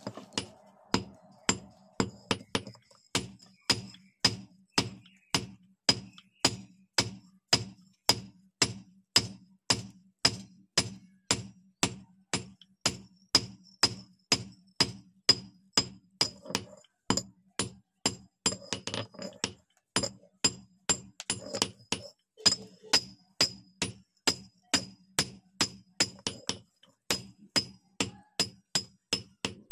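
Hand hammer forging an axe head on a steel anvil, with steady blows about twice a second, each giving a short metallic ring. The metal starts red-hot: the damaged cutting edge is being hammered back into shape.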